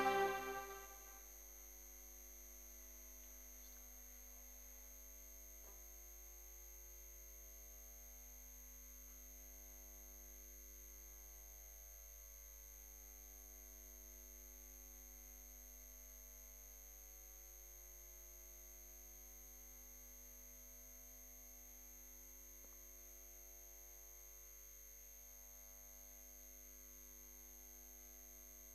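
Faint, steady electrical mains hum of several tones, wavering slowly and evenly. Music fades out about a second in.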